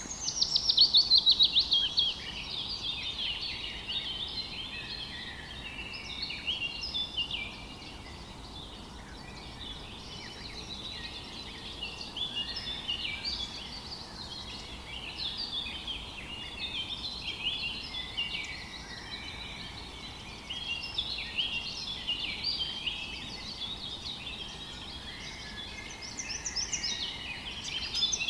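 Several birds singing at once, overlapping chirps and phrases, opening with a loud, fast run of repeated notes in the first two seconds. Underneath runs a steady rush of river water.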